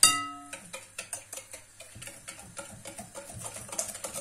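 Wire hand whisk beating eggs and sugar in a glass bowl: it opens with one ringing clink on the glass, then runs on as a quick, steady clicking and scraping of the wires against the bowl.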